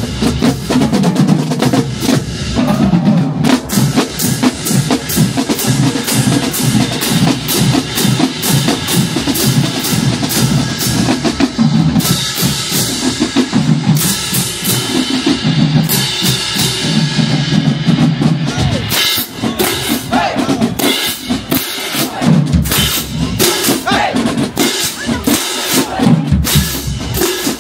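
Marching band drumline playing a fast, continuous cadence of snare and bass drums, with sustained low notes held for a few seconds midway.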